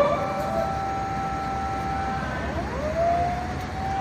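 Fire engine siren wailing: a held high tone that drops and winds back up about two and a half seconds in, then holds again.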